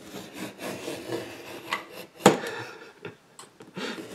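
X-Acto craft knife scraping and slicing through about 1/8-inch adhesive mounting board along a metal ruler, in uneven rasping strokes, with a sharp click a little over two seconds in.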